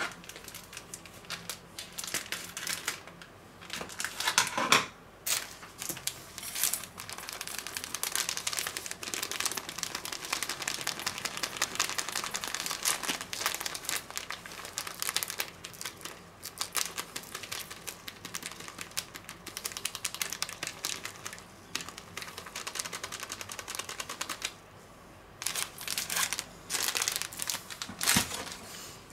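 Packet of ground almonds crinkling and rustling as it is opened and shaken out into a stainless steel bowl on a kitchen scale, a steady run of small crackling clicks with a brief pause near the end.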